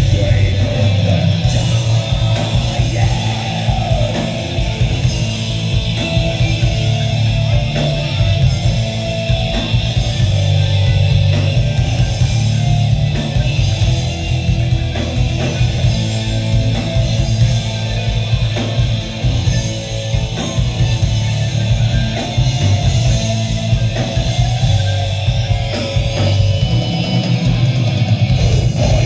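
Progressive metal band playing live at full volume: distorted electric guitar, bass guitar and a Pearl drum kit with steady cymbal and drum hits.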